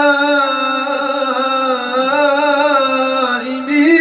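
A man singing Moroccan madih, Prophet's praise song, holding one long ornamented vowel that sways gently in pitch, sinking about three seconds in and then rising again near the end.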